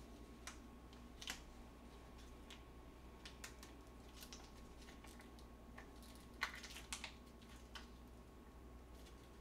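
Faint scattered clicks and crinkles of a plastic soft-tofu (sundubu) package being squeezed and handled over a black plastic container, the tofu going into the container. The sharpest clicks come a little past a second in and as a close pair a little past six seconds in.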